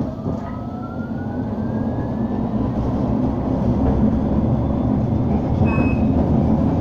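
Bombardier Incentro tram pulling away from a stop: the traction motor's whine rises in pitch for the first couple of seconds, under a steadily growing rumble of wheels on rail. A short high tone sounds near the end.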